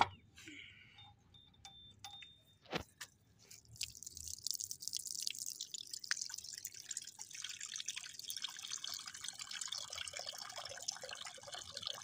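A couple of sharp knocks as a terracotta clay bowl is set down on a concrete floor, then from about four seconds in tap water runs and splashes steadily into the bowl, filling it.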